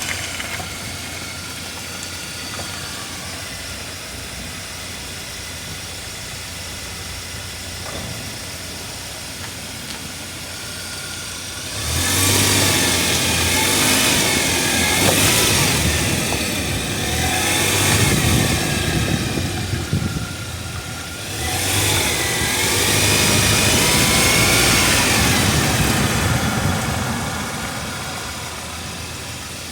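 A car being driven, with engine and road noise, heard from inside the cabin. About twelve seconds in and again about twenty-two seconds in, the engine gets louder and rises in pitch as the car accelerates, then settles back near the end.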